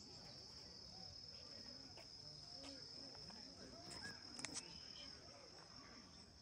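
Insects chirring outdoors: a steady, high, continuous buzz like crickets, with faint distant voices beneath it. A few sharp clicks sound about four seconds in.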